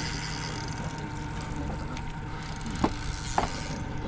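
Small 20 hp outboard motor running steadily at low trolling speed, a constant low hum. Two short sharp knocks come close together near the end.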